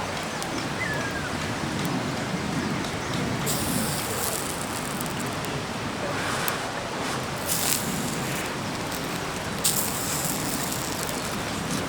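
Steady babbling of the Doshi River, with several short hissing bursts from about three seconds in.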